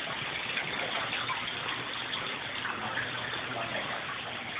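Steady rush of stream water flowing.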